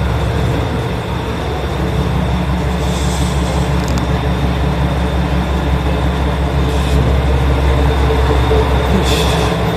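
JR West KiHa 120 diesel railcar's engine rumbling steadily as it pulls in and stands at the platform, with short hissing sounds about three, seven and nine seconds in.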